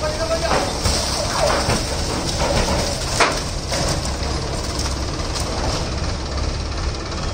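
Sonalika tractor's diesel engine running steadily while its sugarcane trolley is tipped, with scattered knocks and crackles from the trolley and load and one sharp crack about three seconds in.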